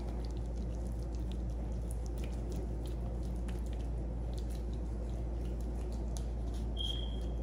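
Hands rubbing yellow mustard over raw beef ribs on a tray: faint wet squishing with small scattered clicks over a steady low hum. A short high tone sounds near the end.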